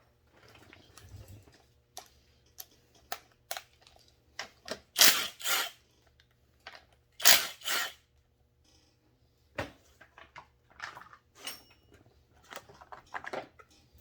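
Hand tools and chainsaw parts being handled on a workbench: scattered light clicks and clanks, with louder short rushes of noise about five and seven seconds in.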